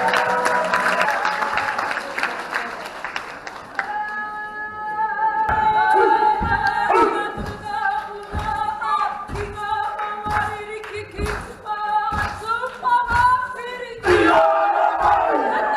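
Music with several voices singing held notes, over regular thumps about once or twice a second.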